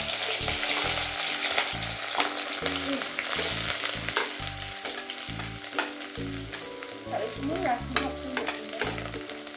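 Chopped onions sizzling and frying in hot oil in an aluminium kadai, a steady hiss with occasional sharp clicks. Background music plays underneath.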